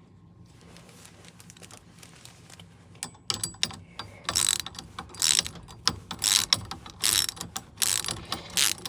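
Hand ratchet wrench clicking as a bolt is tightened: faint ticks at first, then from about three seconds in a run of loud ratcheting strokes roughly one a second.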